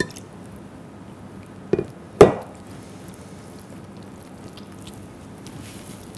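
Warm milk poured into flour in a glass mixing bowl, then hands mixing it into dough. Two sharp knocks come about two seconds in; the second is the loudest sound.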